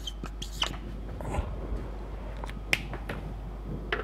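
Marker pen writing on a whiteboard: scattered short taps and squeaks as the strokes are made, with a few sharper clicks about three seconds in.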